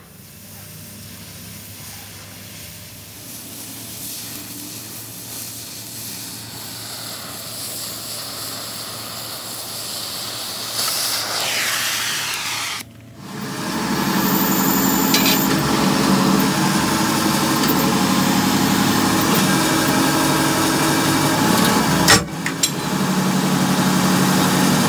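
Oxy-fuel cutting torch hissing steadily as it cuts a circle out of steel plate, growing louder. About halfway through this gives way to a press machine running with a steady hum.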